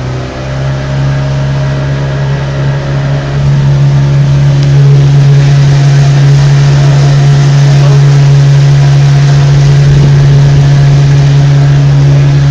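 Boat engine speeding up, growing louder over the first few seconds, then running steadily at a high, even pitch.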